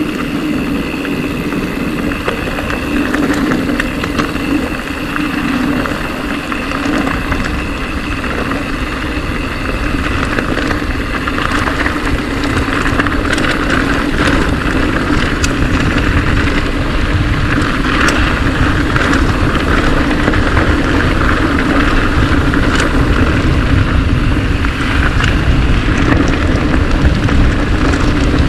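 Mountain bike descending a trail: steady wind and tyre-rolling noise with a deep rumble, scattered knocks and clicks from the bike, growing louder as speed builds.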